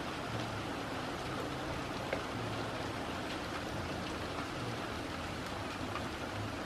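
Steady rain falling, a constant hiss with a few faint drops ticking close by.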